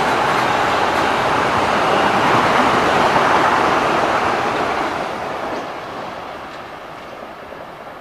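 Metro-North electric multiple-unit commuter train passing at speed: a steady rush of wheel and rail noise that fades away over the last three seconds as the train recedes.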